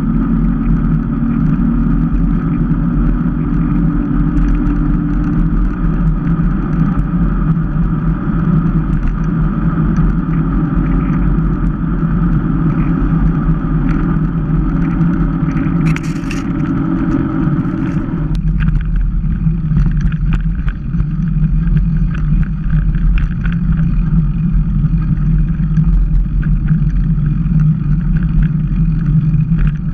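Wind rushing over the microphone of a camera mounted on a moving mountain bike, mixed with the tyres' rolling noise: a loud, steady rush. The noise changes abruptly about two thirds of the way through.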